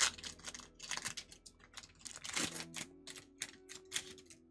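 Pokémon trading cards being handled and flicked through, a quick irregular run of crisp clicks and snaps that stops shortly before the end, over faint background music.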